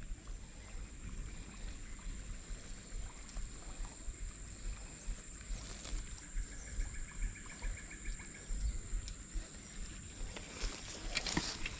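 Outdoor ambience: a steady high-pitched insect drone over low rustling and handling noise, with a short rapid trill about six seconds in. Sharp clicks and knocks near the end.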